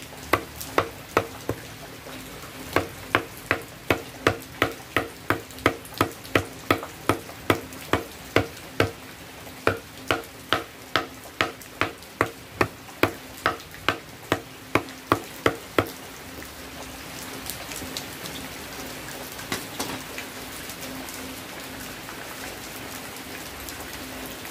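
Machete chopping fermented coconut husk on a wooden chopping block, a sharp chop about twice a second with a few short pauses. The chopping stops about sixteen seconds in, leaving a steady hiss.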